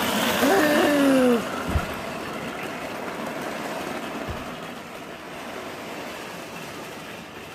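Lionel toy electric train running around its track, a steady whirring noise of the motor and wheels that slowly fades as the train moves off. Near the start there is a brief, louder falling tone lasting about a second.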